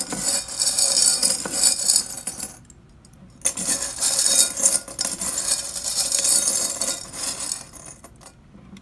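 Small metal charms rattled around inside a glass tumbler, jingling and clinking against the glass. It comes in two bouts with a short break about two and a half seconds in, and dies away near the end.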